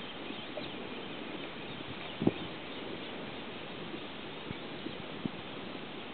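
Steady outdoor background hiss with a few short, faint knocks, the loudest about two seconds in.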